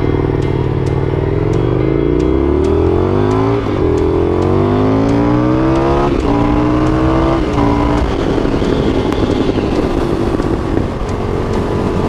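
Indian FTR 1200 S V-twin engine accelerating away from a stop through the gears: the engine note climbs, drops back at each of three upshifts between about four and eight seconds in, then settles into a steady cruise. Wind noise on the helmet-mounted mic is heard under the engine.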